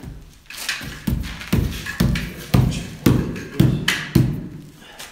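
Hammer driving a nail through a soundproofing panel into the wall: steady strikes about two a second, each ringing out briefly, starting about a second in and stopping shortly before the end.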